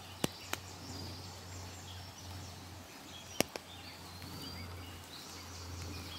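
Birds chirping and singing in short phrases over a steady low rumble. Two sharp clicks come near the start and two more about halfway through.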